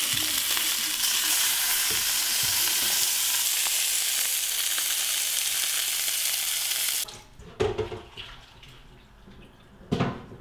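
Pork tenderloins searing in a frying pan in oil and butter: a loud, steady sizzle that cuts off suddenly about seven seconds in.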